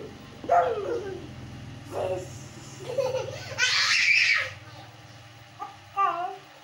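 Young children's voices laughing and calling out in play, with a loud breathy shriek about four seconds in.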